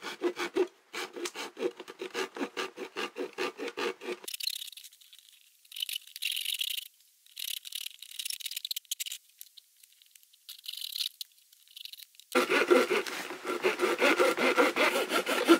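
Hand pipe saw cutting through a plastic watering can, with quick back-and-forth strokes. After about four seconds the strokes give way to quieter, higher-pitched scratchy rasping in short spells. About three seconds before the end, steady, louder sawing resumes.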